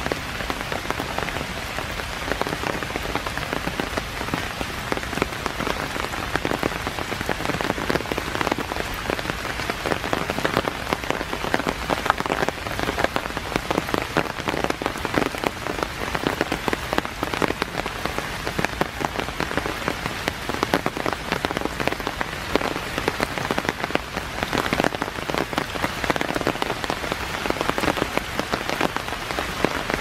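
Steady rain falling, a dense patter of many small drops.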